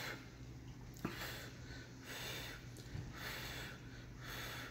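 Several short puffs of breath blowing on a forkful of noodles held up from the bowl, with a single click about a second in.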